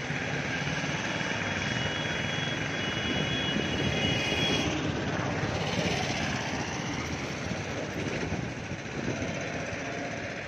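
Road traffic: cars driving through a concrete underpass, a steady rush of engines and tyres that swells a little midway. A thin, high, steady whine sits over it for the first four or five seconds, then stops.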